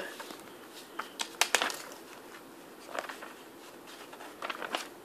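Paper rustles and short sharp taps from a sticker album's glossy pages being handled and turned, a few scattered clicks with the loudest about one and a half seconds in.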